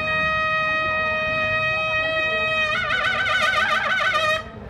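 Trumpet played solo: one long held note, then a note with a fast wavering shake that stops shortly before the end.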